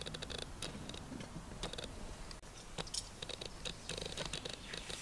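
Irregular light clicks and crackles over a low steady rumble.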